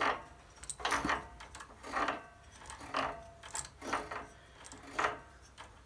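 Flywheel of a Briggs & Stratton V-twin turned over by hand with the starter pinion meshed into its new ring gear: short metallic clicks with a brief ring, about one a second.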